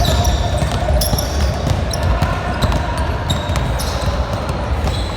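Basketball game in play: the ball bouncing on the court and many short high squeaks, over a steady rumble of the hall.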